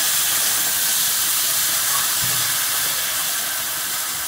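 Loud, steady sizzling hiss of water poured into a hot wok of frying pumpkin slices, with the water boiling off as steam on the hot oil. The hiss eases slightly toward the end.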